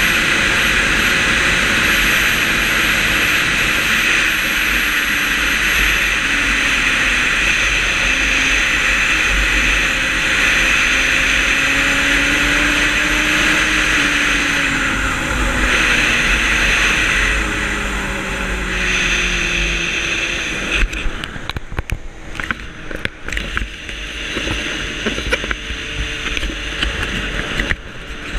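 Motorcycle riding at road speed, heard mostly as wind rushing over the camera microphone with the engine note underneath, its pitch rising and then sliding down as the bike slows. About 21 seconds in the steady wind rush drops away and the sound turns uneven and gusty.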